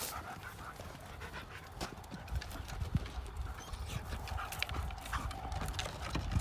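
Quick, uneven footfalls and dog paws clattering on dirt and on wooden agility ramps as two German shepherds run the course, over a steady low rumble.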